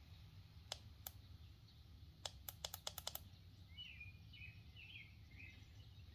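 Faint clicks of a portable tire inflator's pressure-setting button being pressed: two single clicks, then a quick run of about eight clicks as the setting is stepped up. Faint bird chirps follow in the background.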